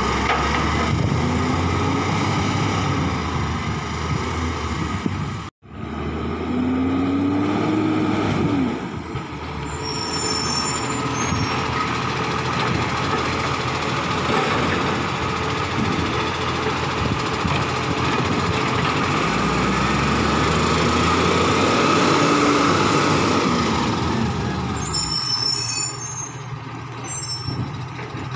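Iveco side-loader garbage truck running, its engine speed rising and falling as the hydraulic arm lifts and empties wheelie bins. The sound breaks off sharply once, and a few high squeals come twice, the second time near the end.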